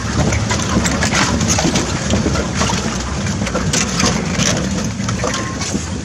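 Open safari vehicle's engine running as it drives slowly along a rough track, with frequent clattering and knocks from the vehicle bumping along.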